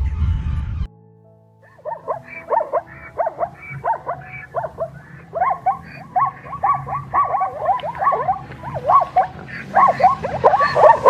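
A loud low sound cuts off about a second in. After a short pause an animal gives a rapid run of short, pitch-swooping calls, a few each second, growing busier toward the end.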